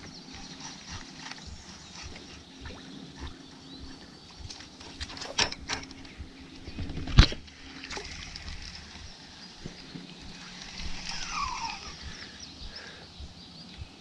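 Fishing rod and spinning reel handled in a small boat: scattered clicks and a few sharp knocks, the loudest a single hard knock about seven seconds in, over a faint steady hum. A brief falling tone sounds near eleven seconds.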